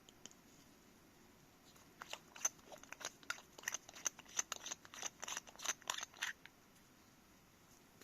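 Packaging being handled during a lens unboxing: a quick run of crisp crackles and clicks lasting about four seconds, starting about two seconds in.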